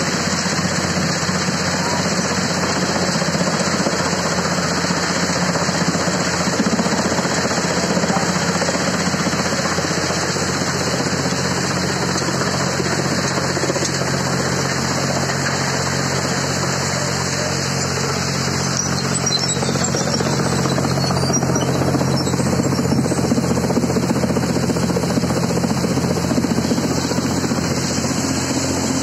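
Tractor-driven multicrop thresher running steadily while crop stalks are fed into it, its threshing noise mixed with the tractor engine's even hum.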